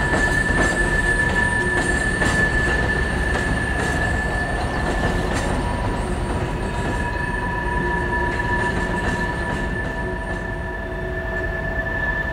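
Boxcars of a freight train rolling across a steel trestle: steel wheels squealing in several steady high tones over a low rumble, with occasional faint clicks, easing off slightly as the cars move away.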